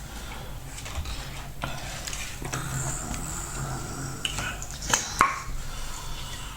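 Quiet eating sounds: chewing and mouth noises, with a few short, scattered clicks and taps.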